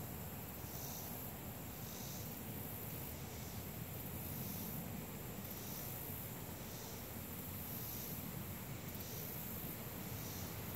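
Quiet outdoor ambience: a steady low rumble with a faint high insect call repeating about once a second.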